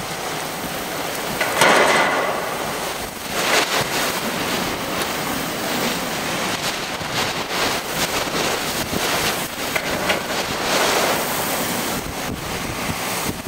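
Hurricane wind and rain in a steady rush, with louder gusts about two seconds in, around three and a half seconds, and again near eleven seconds.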